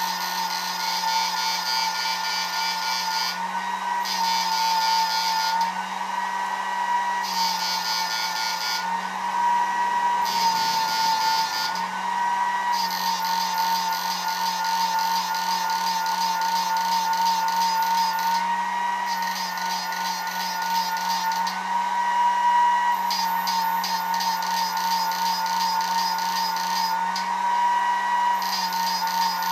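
A homemade ultrasonic fishing inverter running under load. It gives a steady high electrical whine, and a sharper buzzing layer on top of it cuts in and out every one to three seconds. Under both runs the rush of its high-speed cooling fan.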